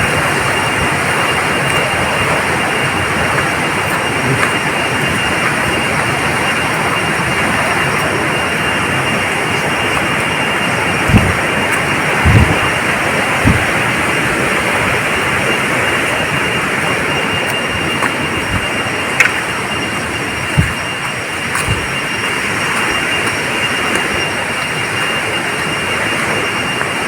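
Steady roar of rushing water from a waterfall and its stream, with a few dull low knocks a little before the middle and again later on.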